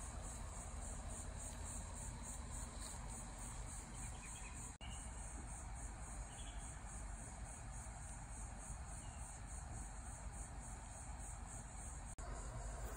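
A steady chorus of insects, a high-pitched pulsing drone, over a faint low rumble. The sound drops out briefly twice.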